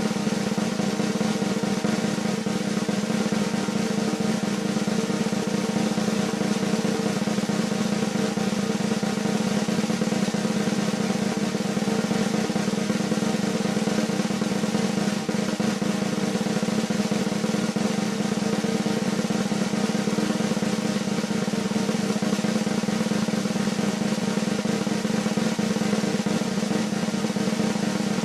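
Snare drum roll, sustained and even, holding the same level without a crescendo or break.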